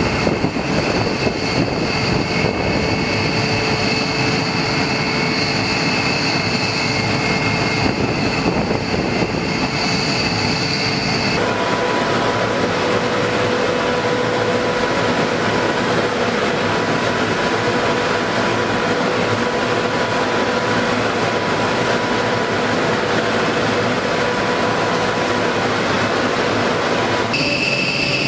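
Steady airfield flight-line machinery noise: a constant whine of a few high tones over a broad rumble. The tones change abruptly about eleven seconds in and again near the end.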